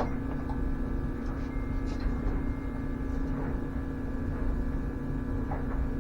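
Steady electric hum of a smoke machine's air pump running, pushing smoke into the Jeep Cherokee's intake and EVAP lines to find a very small vacuum leak, with a few faint clicks of handling.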